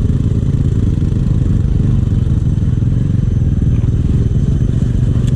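Motorcycle engine running at a steady pitch while under way.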